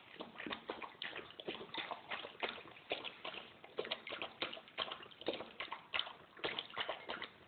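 Alaskan Malamute lapping water from a stainless steel bowl: quick wet laps at about three to four a second.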